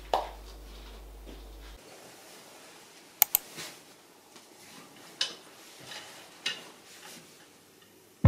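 Handling of clothes at a coat rack: a sharp double click about three seconds in and a few softer clicks from coat hangers on a rail, with faint rustling as a coat is put on.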